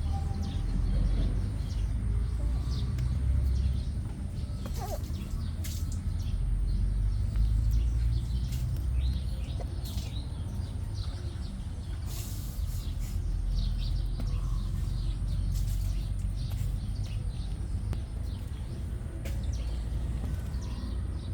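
Outdoor background noise: a steady low rumble with faint short chirps and clicks scattered through it.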